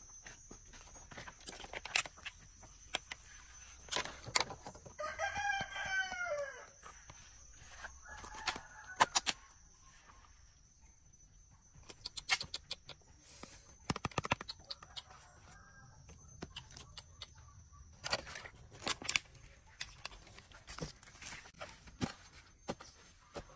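A rooster crowing once, a call of about two seconds that drops in pitch at its end, followed by fainter, shorter calls. Scattered sharp clicks and taps and a steady high thin whine run underneath.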